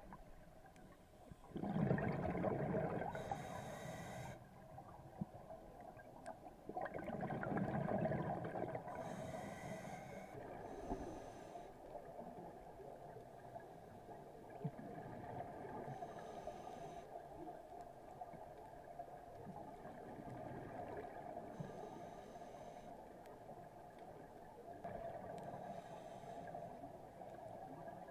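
Scuba diver breathing through a regulator, recorded underwater: bubbling exhalations and shorter hissing inhalations repeating every few seconds, the two exhalations near the start the loudest.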